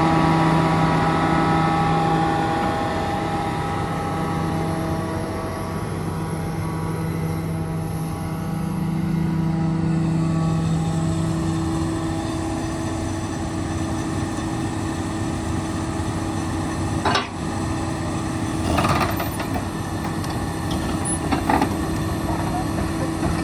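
Komatsu PC400LC-7 excavator's six-cylinder diesel engine running at a steady speed while the boom and arm are worked, with extra tones coming and going in the first few seconds. There is a sharp knock about two-thirds of the way through and a few lighter clanks near the end.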